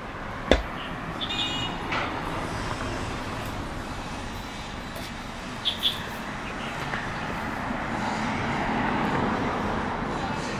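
Street traffic noise, with a vehicle passing that grows louder and peaks near the end. A single sharp click about half a second in, and a few brief high chirps.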